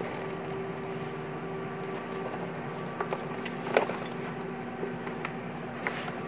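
Light clicks, knocks and rustles of a lithium battery pack in its fabric bag and its wiring being handled and pushed into an electric bike's under-seat compartment, over a steady background hum.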